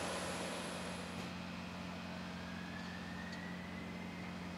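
Airport apron noise: a steady low engine hum from aircraft or ground equipment at the stand. A high jet whine cuts off about a second in, and a faint whine rises slowly in pitch through the middle.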